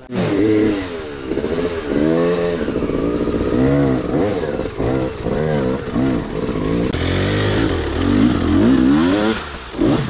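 Enduro motorcycle engine revving up and down in quick repeated surges, its pitch rising and falling about once or twice a second, with a sharper rise and drop near the end.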